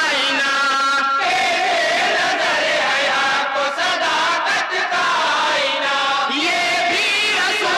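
A group of men singing a naat in chorus, holding long chanted lines.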